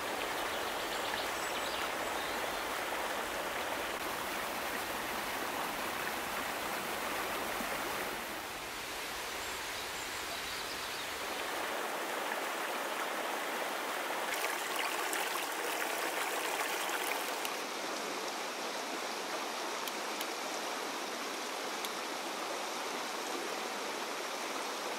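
Rocky mountain stream rushing over boulders: a steady wash of running water. Its deep rumble drops away about halfway through, leaving the lighter splashing.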